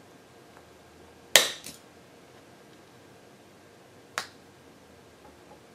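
Two sharp clicks of hard craft tools or objects handled on a work table, the first about a second and a half in with a smaller click just after it, the second about three seconds later.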